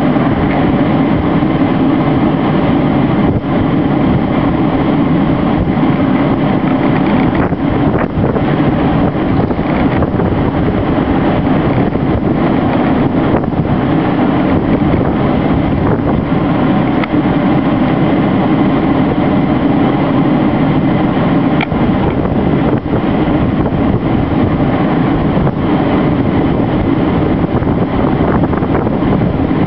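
Loud, steady rush of wind on the microphone over traffic, as a line of police cars drives slowly past on the road. No sirens are heard.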